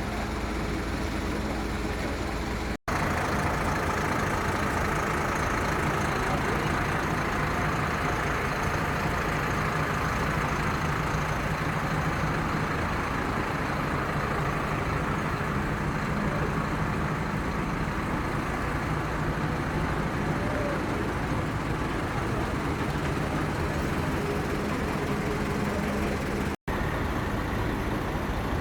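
Large bus engines running close by with a steady low drone and road noise. The sound breaks off abruptly twice, about three seconds in and near the end.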